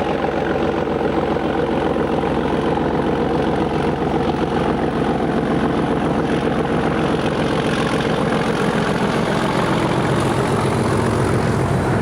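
Class 37 diesel-electric locomotive engine running steadily under power, a dense, even beat.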